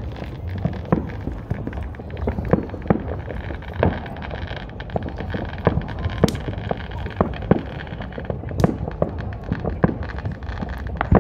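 Fireworks going off all around: a steady run of irregular pops and bangs, sometimes two or three in quick succession, over a low steady rumble.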